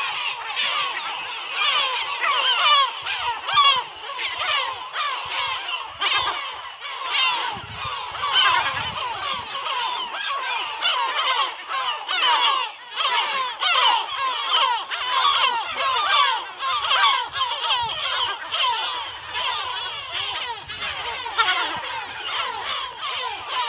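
A colony of gulls calling all at once: a dense, unbroken chorus of many overlapping calls.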